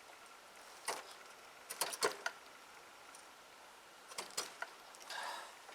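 Scattered metallic clicks and scrapes, a Phillips screwdriver working at the speedometer cable fitting on a motorcycle's front wheel. The fitting is stuck fast. The clicks come in a quick cluster about two seconds in and another about four seconds in.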